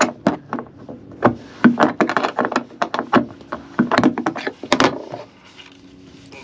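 Half-inch wrench clicking and knocking on a toilet flange-bolt nut in quick, irregular strokes as the nut is worked loose; the clatter stops about five seconds in.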